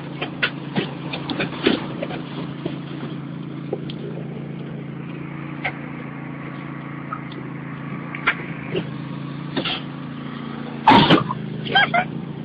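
Riding lawn mower engine running steadily, with scattered knocks and clatter over it and one loud sudden burst about eleven seconds in.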